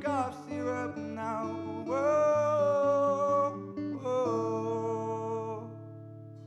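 Closing bars of a song: a singer holds long notes over acoustic guitar. The voice stops about two-thirds of the way through, and the last guitar chord rings on, slowly fading.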